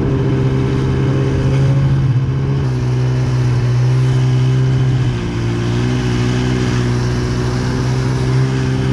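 Snowmobile's two-stroke engine, a 2017 Arctic Cat M8, running at a steady high pitch while riding across snow. The throttle eases briefly about five seconds in, the note dropping a little, then comes back on.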